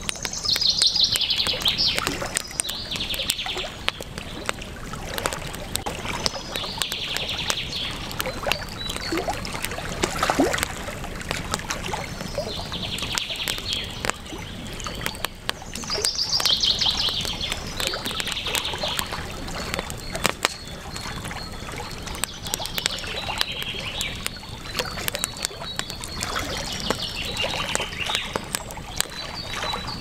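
Campfire crackling with many small sharp pops over the steady rush of a river, while a bird chirps in short high phrases every few seconds.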